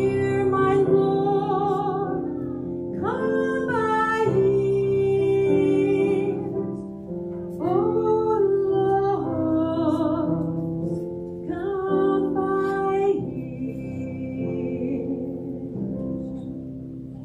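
A woman singing a slow hymn in four long, held phrases over sustained piano accompaniment. The voice stops about thirteen seconds in and the accompaniment fades out.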